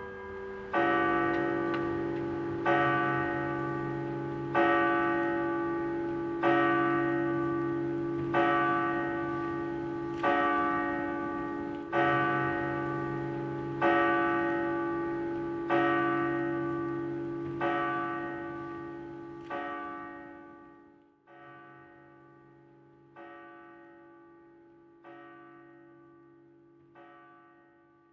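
A single church bell tolling at a slow, even pace, about one stroke every two seconds, each stroke ringing on and slowly dying away. After about twenty seconds the strokes turn quieter and duller.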